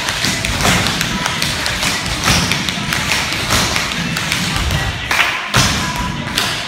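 Tap shoes striking a wooden floor in a quick, uneven run of metal taps and heavier stamps, with music playing underneath.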